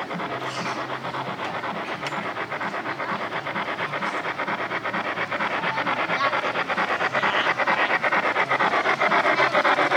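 A model train running on its track with a fast, even clatter of wheels that grows steadily louder as it approaches.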